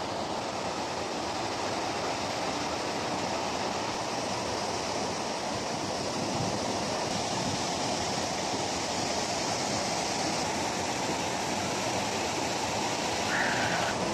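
Mountain river water pouring through a dam spillway and rushing over rocky rapids: a steady, unbroken rush of white water.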